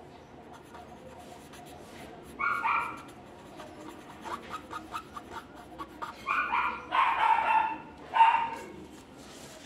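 A dog barking in short calls, once about two and a half seconds in and several more times from about six seconds in.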